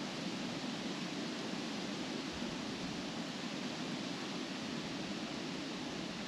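Wind blowing steadily through trees, the leaves rustling in an even, unbroken rush.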